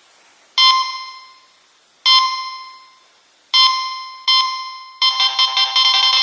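Nokia 3220 mobile phone ringtone playing: four bell-like chimes on the same note, each ringing out and fading, the last two close together, then a fast run of electronic notes begins about five seconds in.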